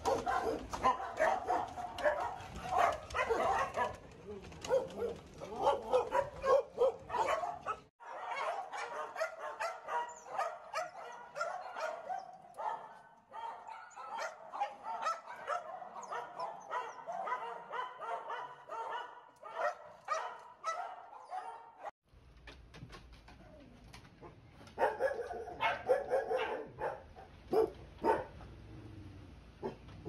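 A crowd of dogs barking and yipping together, many calls overlapping, with two abrupt breaks in the background sound.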